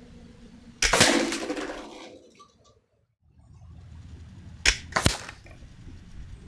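A Hatsan Breaker 900x .22 break-barrel spring air rifle fires once with a sharp crack about a second in, followed by a ringing tail that dies away over about a second. Later come two short, sharp clicks about half a second apart.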